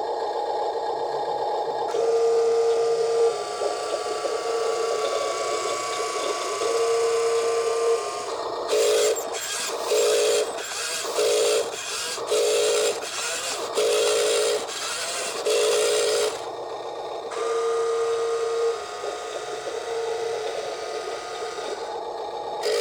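Small electric gear motors of an RC model excavator whining as its boom and bucket are worked, first in long steady runs, then in a string of short jogs about once a second, then steady again near the end.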